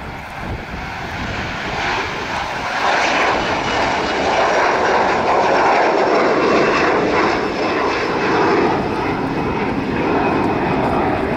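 Boeing 737 jet climbing out after takeoff, its twin engines at takeoff power. The noise grows louder over the first three seconds, then holds steady, with a faint high whine above it.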